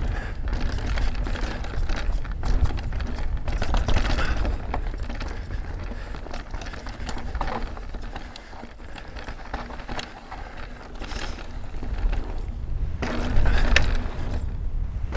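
Mountain bike ridden down a dirt trail: tyres rolling over dirt and loose gravel, with frequent rattles and clicks from the bike over a heavy low rumble. It eases off around the middle and builds again near the end.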